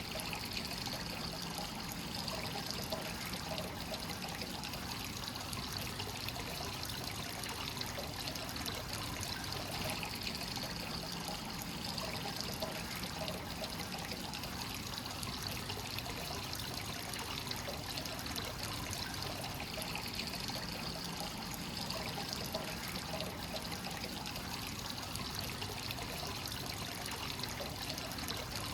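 Free-flowing hot spring water pouring steadily into an onsen bath, a continuous trickling and splashing.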